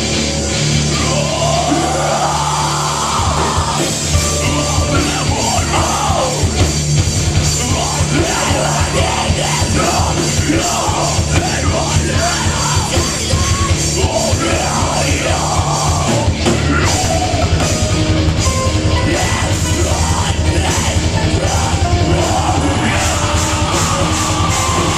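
A live rock band plays loudly with drums, electric guitars, bass guitar and keyboard, and vocals run over the music through most of the passage.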